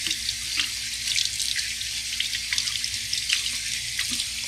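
Kitchen faucet running in a steady stream over raw squirrel meat held in the hands, with small, irregular splashes into the sink as the meat is rinsed and rubbed clean.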